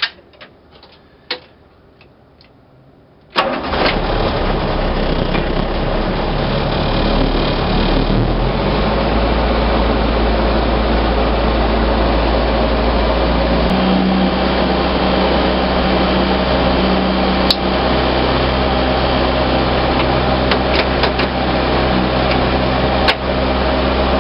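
A few clicks at the dashboard, then the 1969 Land Rover Series IIA's new Rovers North high-performance engine with a Weber carburetor fires about three seconds in and runs at a steady idle, its low note shifting a couple of times as it settles.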